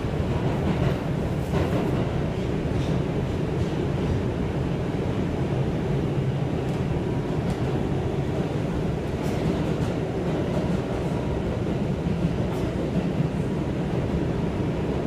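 R142 subway car running at speed through a tunnel, heard from inside the car: a steady loud rumble of wheels and motors, with occasional faint clicks.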